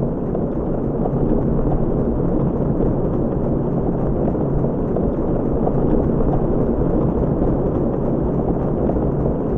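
Submarine propeller (screw) churning underwater: a steady, dense low rumble with a faint hum under it and a fine rapid flutter. It swells slightly in the first second or two, then holds.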